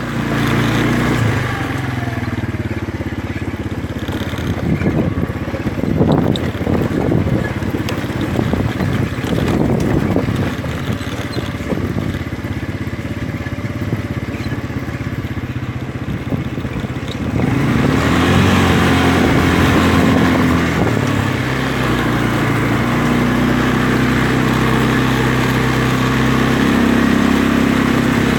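ATV engine running under way, growing louder and harsher about two-thirds of the way through.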